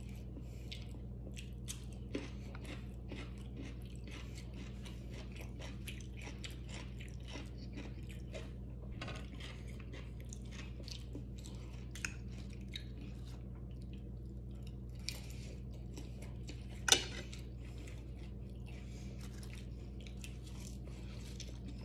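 A man chewing and biting into food, meat and salad greens, close to the microphone: soft, irregular crunching and mouth sounds, with a few sharper clicks and one louder click about 17 seconds in. A steady low hum lies underneath.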